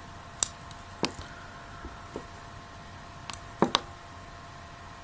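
A few sharp, separate clicks, with a quick pair of clicks late on: the fire button of a V3 Vamo mod pressed to test-fire a freshly rebuilt 2.5 ohm Vivi Nova coil.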